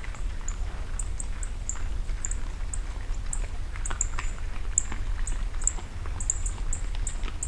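Feral hogs feeding, with faint scattered crunching and snuffling ticks. Over it runs a string of short, high-pitched chirps, two or three a second, and a steady low rumble is the loudest part.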